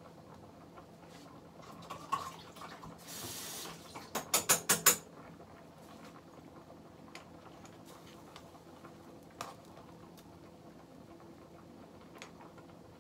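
Gas stove burner being lit: a short hiss, then a quick run of about six sharp igniter clicks. A few light kitchen knocks follow.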